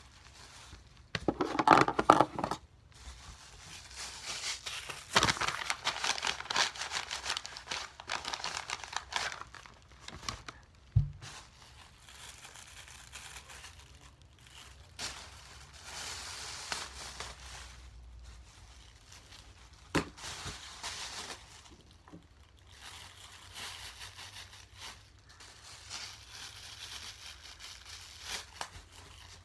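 Cut-up plastic bag pieces crinkling as they are stuffed by hand into a paper pouch, in irregular bursts with a few brief knocks.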